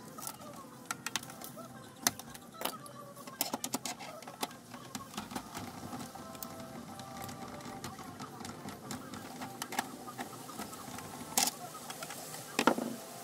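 Irregular sharp clicks and knocks from an Epson L565 inkjet printer's mechanism and parts being worked on, with two louder knocks near the end.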